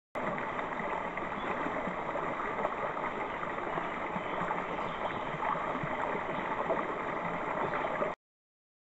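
Small rocky stream spilling over a low ledge: a steady rush of water that starts suddenly and cuts off abruptly near the end.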